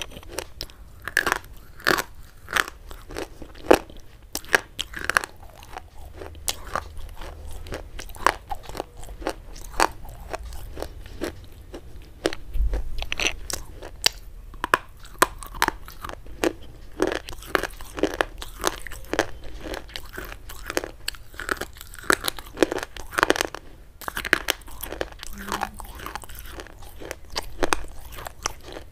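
Hard, chalk-like white sticks being bitten and chewed right at a close microphone: a continuous run of sharp, dry, irregular crunches.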